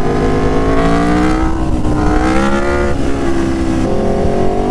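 Aprilia Tuono Factory motorcycle engine under way through a loud aftermarket SC Project S1 exhaust. The engine note rises and falls several times, with a sudden drop in pitch near the end as the revs change.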